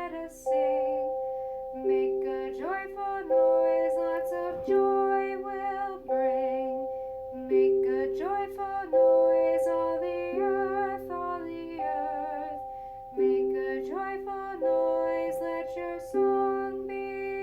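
Song accompaniment with sustained chords starting afresh about every second and a half under a wavering melody line, with no clear sung words.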